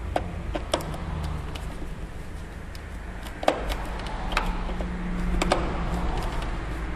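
Scattered light clicks and taps of a security screwdriver working the security screw into a PS3's casing, about five over several seconds, over a steady low hum.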